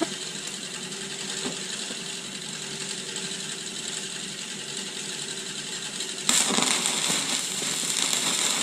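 Stick-welding arc with a 6013 electrode crackling steadily while running a root pass, growing louder about six seconds in.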